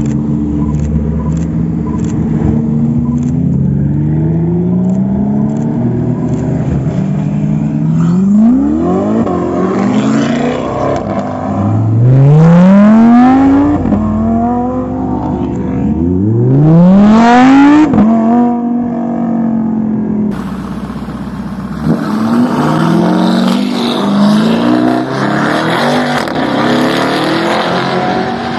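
Supercar engine accelerating hard, its note climbing in pitch and dropping back at each gear change through several gears, loudest in two full-throttle pulls about twelve and seventeen seconds in. About twenty seconds in the sound cuts to another car's engine running and revving.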